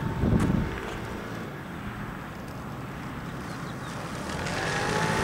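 50cc scooter engine running at a steady pitch in the distance, growing louder near the end as it approaches. A brief loud rumble on the microphone right at the start.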